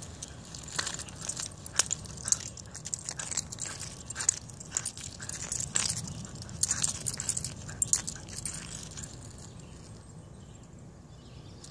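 Irregular clinks and scrapes of a dog leash's metal clip dragging across asphalt as a Shiba Inu pulls the leash along in its mouth. The clinking thins out about nine seconds in.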